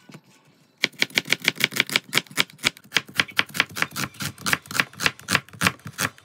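Chef's knife slicing an onion on a plastic cutting board: quick, even taps of the blade hitting the board, about seven a second, starting about a second in.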